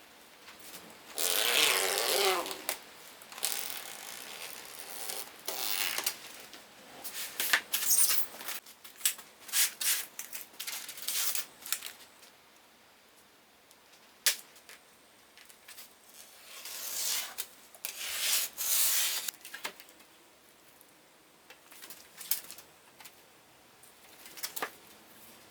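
Workshop handling noises: several scraping or sliding bursts, each a second or two long, with scattered sharp clicks and knocks in between.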